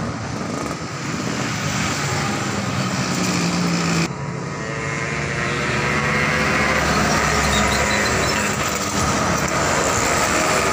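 Road traffic passing: motorcycles and a box truck drive by, with engines running and tyre noise. The sound changes abruptly about four seconds in, and a heavier, deeper engine rumble builds after that.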